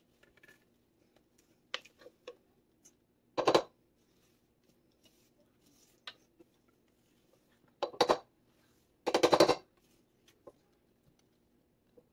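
Silicone spatula scraping thick pumpkin batter out of a ceramic mixing bowl into a glass loaf pan, with light clinks of utensil on dish. Three short scrapes stand out, about three and a half, eight and nine seconds in, with faint ticks between.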